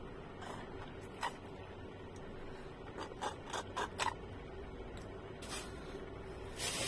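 Short clicks and slurps from sucking juice through a straw out of a small juice carton, clustered around three to four seconds in and stopping as the straw leaves the mouth; a breathy rush of noise near the end.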